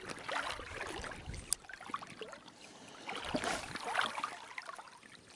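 River water lapping and trickling in uneven bursts, with a single sharp click about a second and a half in.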